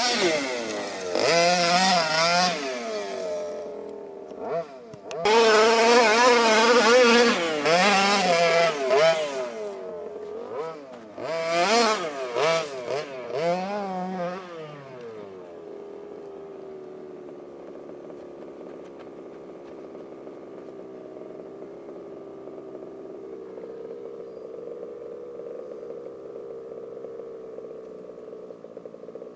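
HPI Baja 5T's 26 cc two-stroke gasoline engine with a Jet-Pro tuned pipe, revving up and down in repeated bursts as the RC truck is driven hard. About halfway through it settles to a steady idle.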